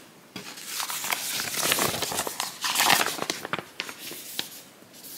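Paper pattern sheets rustling and crinkling as they are handled and moved, with many small crackles, busiest in the middle and dying down near the end.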